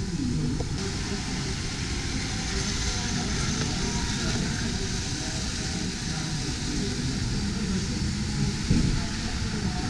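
Steady background hubbub of indistinct voices over a low rumble, with no single sound standing out.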